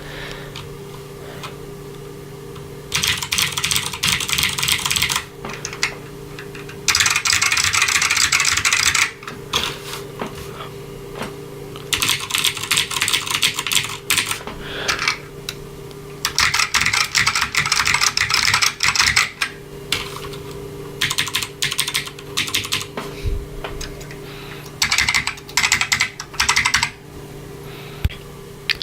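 Typing on mechanical keyboards in six separate bursts of rapid clicking with pauses between, comparing a Cherry MX Blue keyboard with the Matias Tactile Pro's Alps SKBM gray switches. A steady low hum runs underneath.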